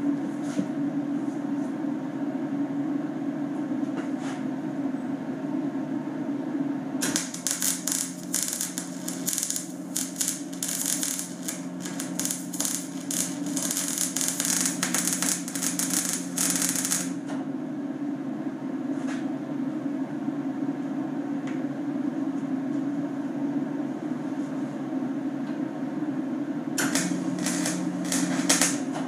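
Wire-feed welder arc crackling steadily for about ten seconds while a bead is run along a steel tube, then stopping. A second short burst of welding comes near the end. A steady low hum runs underneath throughout.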